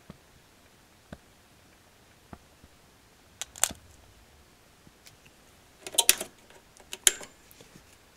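Sharp clicks and small clattering rattles: single ones through the first half, then the loudest clusters about six and seven seconds in. Under them runs a faint steady hiss from the aftermarket cooling fans of the rack-mounted QSC power amplifiers.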